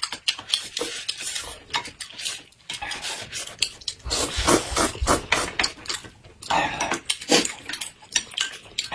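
Close-miked eating sounds: noodles slurped from a bowl, with a long slurp about four seconds in, mixed with chewing and the clicks of chopsticks and a spoon against bowl and glass.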